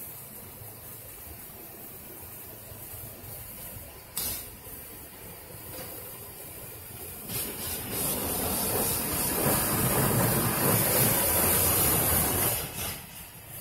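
RACO automatic car wash equipment, heard from inside the car's cabin: a steady hiss of water jets on the body, with a short sharp knock about four seconds in, building after about seven seconds to a loud spray hiss as the windshield is drenched, which cuts off sharply near the end.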